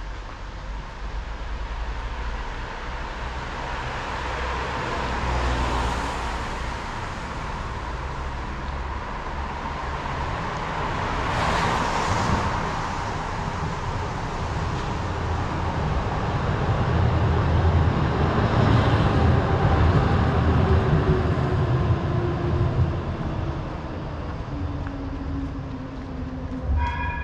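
Street traffic noise with vehicles passing on a wet street: two brief swishes early on, then a heavy low rumble that builds and fades in the middle. A falling whine follows near the end, typical of a passing train or tram slowing.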